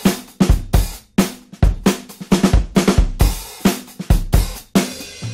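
Background music: a drum kit playing a beat of kick, snare and cymbal hits, with no other instrument.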